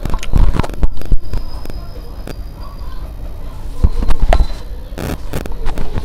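Close-miked hand-eating sounds: fingers squishing and mixing rice with dal on a steel plate, with mouth chewing sounds. Sharp clicks and low thumps come at several points.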